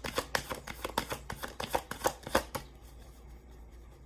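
Tarot cards being shuffled by hand: a quick run of crisp card snaps for about the first two and a half seconds, then fainter handling of the deck.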